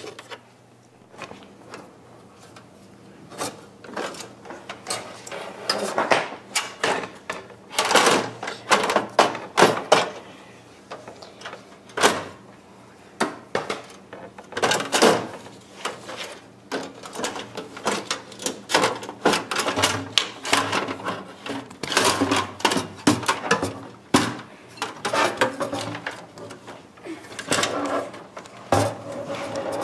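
Irregular clicks, knocks and scrapes of screws, a screwdriver and a motherboard being worked loose and lifted out of a metal computer case.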